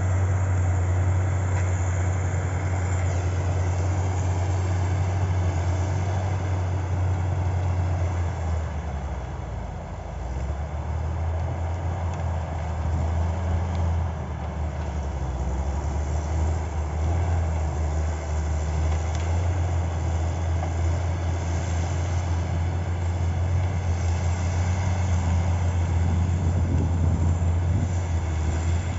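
Caterpillar skidder's diesel engine running steadily under load, its low note dipping briefly about ten seconds in before picking up again.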